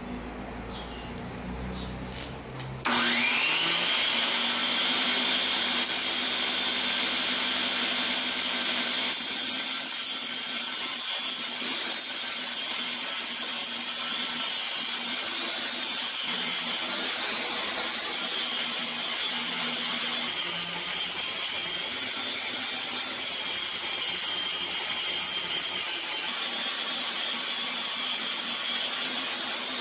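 Belt grinder motor starting about three seconds in, its whine rising quickly to a steady high pitch, then running with a hiss as a forged steel santoku blade is ground on the belt. It is loudest for several seconds after start-up and settles slightly about nine seconds in.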